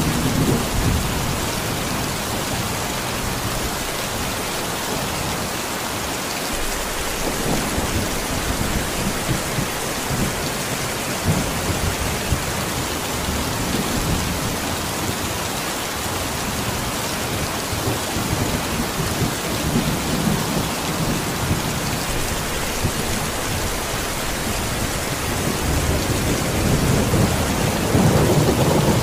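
Steady rain falling on a puddle and leaves, an even hiss throughout. Low thunder rumbles swell up a few times underneath, strongest near the end.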